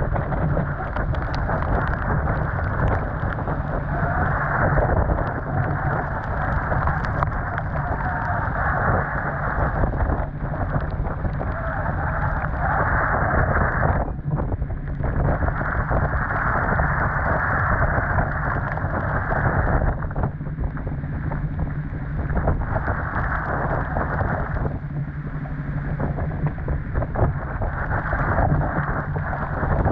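Storm-force wind and driving rain of a microburst sweeping over a sailboat in rough water: a loud, steady rushing that swells and eases every few seconds.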